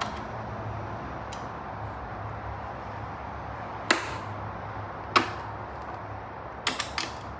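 Hand ratchet snugging up 10 mm bolts: a sharp click about four seconds in, another about a second later, then a quick run of three or four clicks near the end, over a steady low hum.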